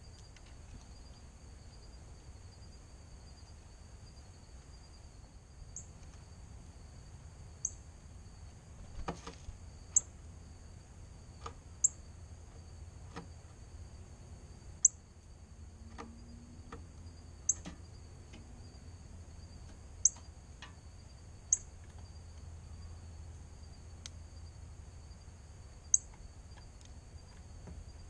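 A bird giving short, sharp, high chip notes, about ten of them at irregular gaps of one to four seconds, over a steady high-pitched insect trill.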